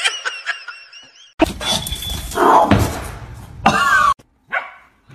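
Laughter fading out, then a stretch of loud thumping and rustling, and a dog barking twice near the end.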